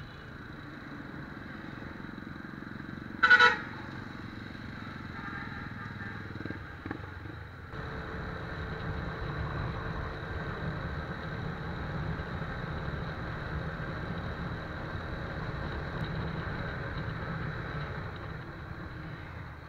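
TVS Apache RTR 180 motorcycle underway, its single-cylinder engine running under steady road and wind noise, with one short vehicle horn honk about three seconds in. The wind and road noise grows louder from about eight seconds in.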